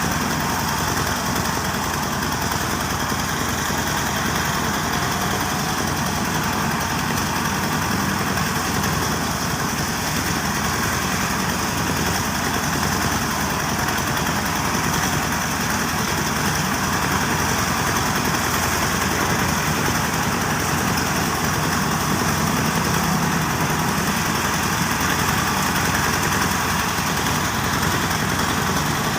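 Diesel-powered rice threshing machine running steadily: the small diesel engine's drone mixed with the whir of the threshing drum, at an even level throughout.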